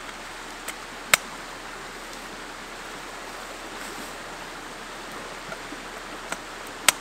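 A creek running steadily, with four sharp clicks from an aluminium roll-top camp table being assembled; the loudest come about a second in and near the end.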